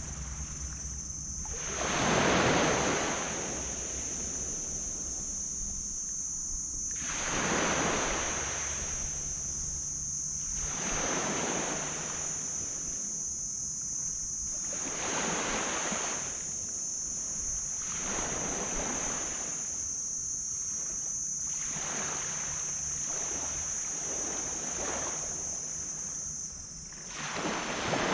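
Small waves breaking and washing up on a black sand beach, about six surges a few seconds apart, the loudest about two seconds in and again at the end, over a steady high-pitched hum.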